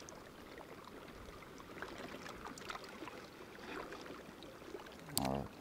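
Gentle sea water washing and trickling among shallow rocks, with scattered faint clicks and one sharp click near the end.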